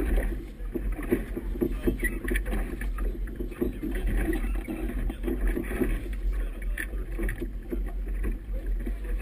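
Committee boat under way through choppy river water: an irregular run of hull slaps and splashes with wind on the microphone, over a steady low rumble.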